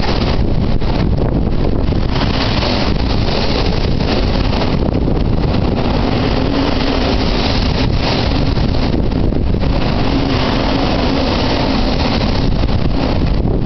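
Typhoon wind buffeting the microphone: a loud, continuous rushing rumble that swells and eases in gusts.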